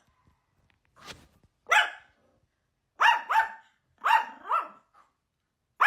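A dog barking: one bark, then two quick double barks.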